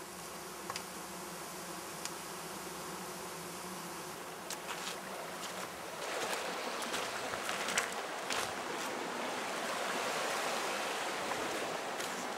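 Flies buzzing over heaps of dead salmon: a steady drone. About halfway through, a louder, even rushing noise takes over, with rustling and a few sharp knocks.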